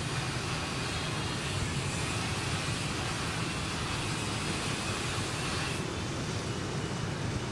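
Steady hum of distant city road traffic, a constant low rumble under a broad hiss; the higher hiss drops away near the end.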